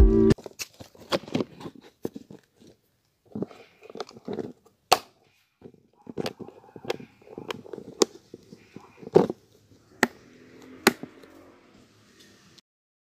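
Scattered sharp clicks and knocks of a clear plastic storage box and its lid being handled on concrete, with faint low murmur in between. Music cuts off just after the start.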